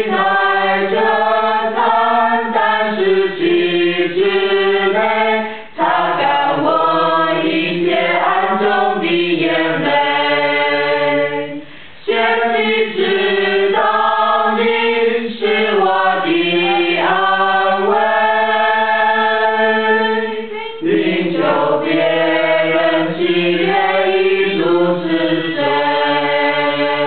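A choir singing in long held notes, in phrases broken by short pauses about six, twelve and twenty-one seconds in.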